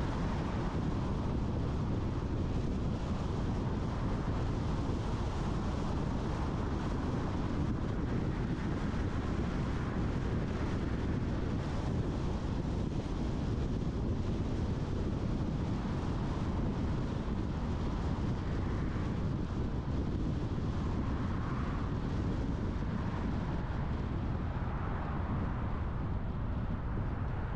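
Steady low road rumble of a car being driven, tyres and engine running at an even speed, with a few faint swells in the upper range in the second half.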